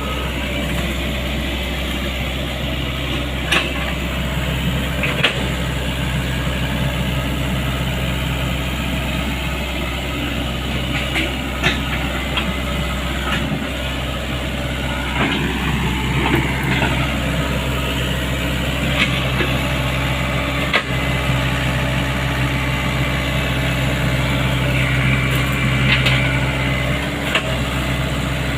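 Sany excavator's diesel engine running steadily, with several sharp knocks scattered through.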